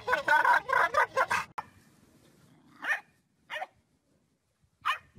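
A black dog vocalizing in a car with a rapid, choppy run of yowls that stops after about a second and a half. Then three short, separate puppy barks follow, spaced a second or so apart.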